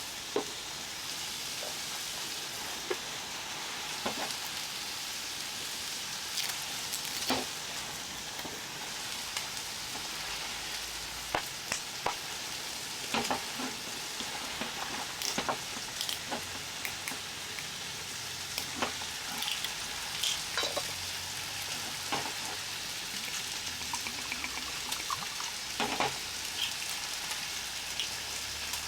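Food frying in a pan: a steady sizzle with scattered sharp pops and clicks.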